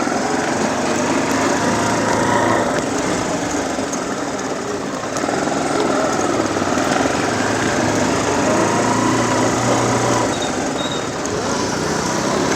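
Small motorcycle engine running steadily under way, its engine note holding with small rises and dips.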